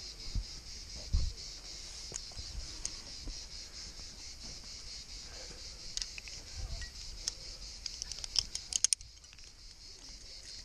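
Cicadas singing in a steady, high, pulsing drone. Near the end comes a quick run of sharp metallic clicks as a quickdraw's carabiner is clipped onto a bolt, and the drone drops off just after.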